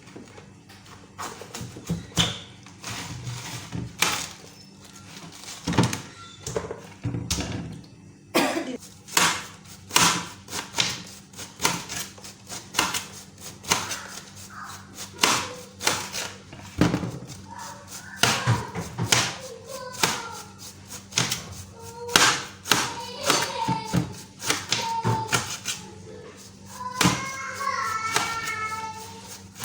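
Knife chopping vegetables on a cutting board: a steady run of sharp knocks. Music or voices in the background join about halfway through.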